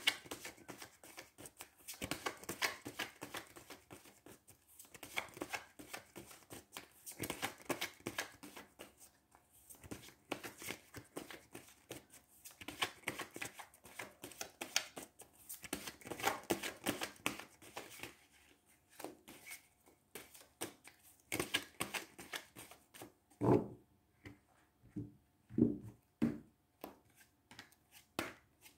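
A deck of tarot cards being shuffled by hand: a quick patter of card edges in repeated bursts, then a few louder separate knocks near the end as the cards are knocked together or set down.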